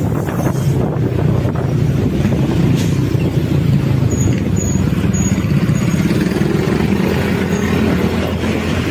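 Motorcycle engine running steadily while riding in traffic, with a constant low hum under road and wind noise.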